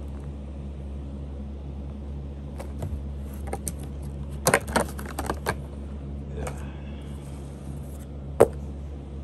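Clear plastic packaging being handled, clicking and crackling, with a dense run of sharp clicks about halfway through and one sharp tap near the end, over a steady low hum.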